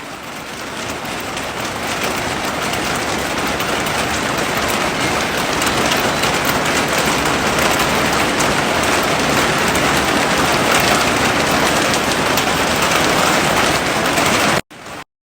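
Heavy rain falling steadily, a dense hiss of drops. It fades up over the first couple of seconds and cuts off suddenly near the end.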